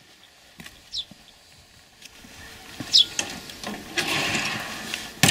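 Footsteps on dry ground approaching a wooden outhouse, with two short bird chirps about a second and three seconds in, then a sharp click of the outhouse door's metal latch near the end.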